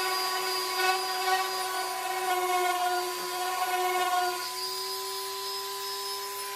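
DeWalt orbital sander with 120-grit sandpaper running at a steady whine, sanding hardened Bondo filler flush with the wood.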